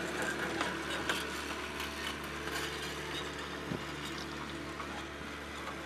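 Steady engine hum under a constant hiss, with a few faint scattered clicks.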